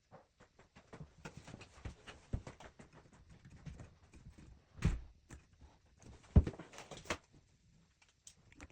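Tools and fittings being handled during plumbing work: irregular clicks and light knocks, with two louder thumps about five and six and a half seconds in.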